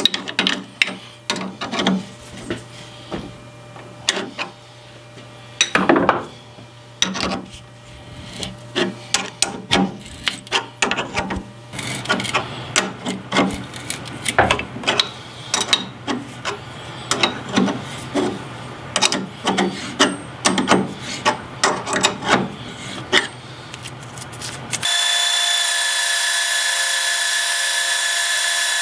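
A tap being turned by hand with a wrench into the bore of a steel part held in a metal lathe chuck: irregular clicks, creaks and scrapes as the tap cuts and the wrench is worked and reset. About 25 seconds in this gives way to the steady running of the lathe with its chuck turning.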